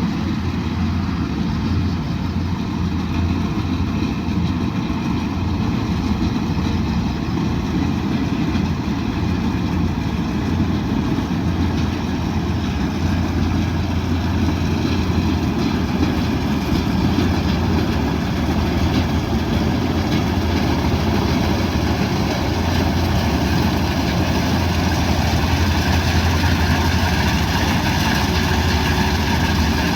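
Kubota DC108X combine harvester running steadily with a deep engine hum, growing a little louder in the second half.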